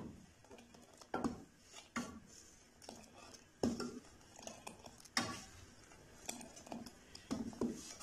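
A ladle knocking and scraping against a stainless steel pot while stirring boiling kada (herbal tea), lifting the liquid and pouring it back. The knocks are irregular, roughly one a second.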